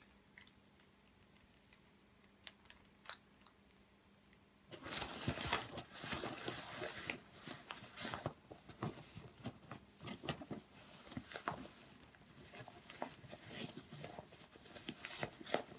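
Stiff new power cables being pushed into the front pocket of a padded nylon equipment case: rustling, scraping and clicking of cable and fabric being handled. After a few scattered clicks, the handling starts in earnest about five seconds in and keeps going.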